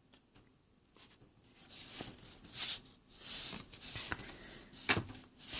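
Football trading cards being handled: a short hush, then cards sliding and swishing against each other as they are flipped through, with a few light taps near the end.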